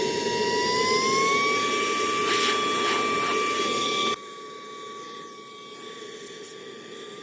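Saker mini handheld vacuum running as an air blower, inflating an ottoman, with a steady high motor whine and rushing air. The whine rises slightly in pitch about a second in. About four seconds in the sound drops sharply in level, and the whine carries on more quietly.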